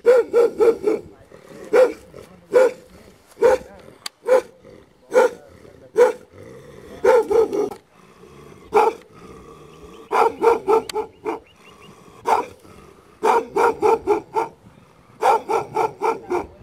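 Sage Ashayeri, an Iranian shepherd dog, barking repeatedly: single barks about a second apart alternating with quick runs of four or five barks.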